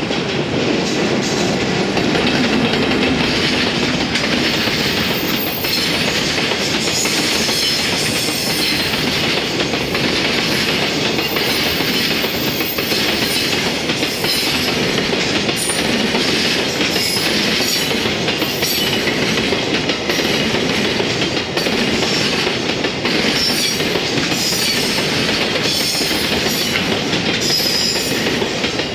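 Long container freight train of Koki flat wagons passing close by, wheels clattering steadily over the rail joints with continuous running noise.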